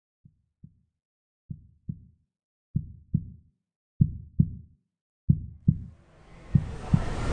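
Heartbeat sound effect: pairs of low thumps, a pair about every 1.3 seconds, growing louder. A rising swell of noise builds under them near the end.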